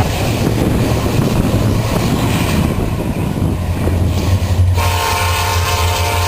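Diesel freight locomotive rumbling along the rails. About five seconds in, its air horn starts to sound and holds steady.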